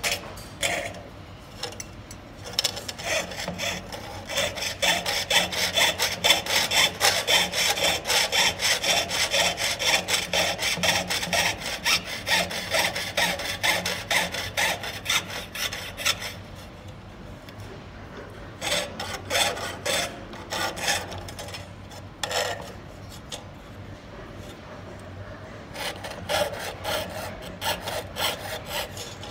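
Jeweler's saw blade cutting through thin copper sheet on a wooden bench pin, in quick rasping back-and-forth strokes. A long steady run of sawing breaks off partway through, followed by shorter bursts with pauses between them.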